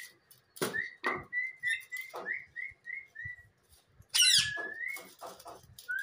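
Green ringneck parrot whistling a quick run of short high notes, then giving a shrill squawk followed by a rising whistle about four seconds in. Light clinks of metal lock parts being handled come in between.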